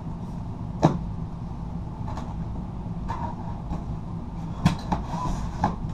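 Cardboard drone box being handled and opened by hand: sharp knocks and taps, one about a second in and a cluster of three near the end, over a steady low rumble.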